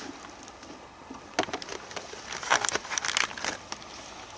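Rustling and crackling of grass and dry forest litter close to the microphone, a scatter of sharp crackles that grows busier in the second half.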